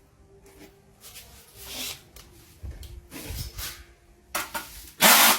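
Handling noises: scattered rubbing and clicking as a cordless drill is picked up and set up for a test, then one loud short burst of noise about five seconds in.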